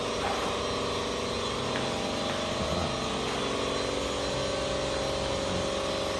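A steady mechanical hum with several held tones and a rumbling low end, running without a break.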